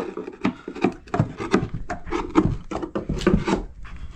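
A hand tool scraping and prying at carpet gripper rod and tacks on a wooden floor: irregular scrapes and short wooden knocks, several a second.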